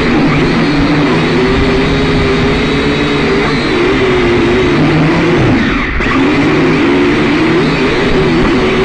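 Syma X5C quadcopter's motors and propellers whining, the pitch wavering up and down as the throttle changes. The pitch dips about six seconds in, then climbs again.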